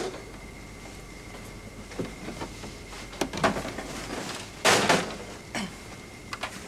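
A plastic crate of bottles handled and slid along a metal roller conveyor: several separate knocks and rattles, the loudest about two-thirds of the way through, over a faint steady high hum.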